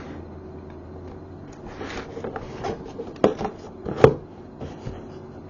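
Cardboard action-figure box being handled and turned over: soft rustling and scraping, with two sharp knocks a little under a second apart, about three and four seconds in.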